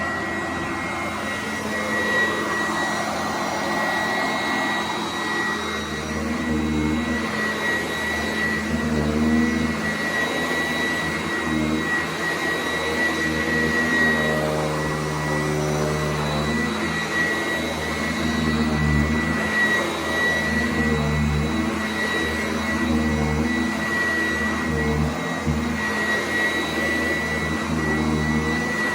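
Sanitaire S675 upright vacuum cleaner running, with a steady high whine. A lower rumble joins about six seconds in and keeps rising and falling.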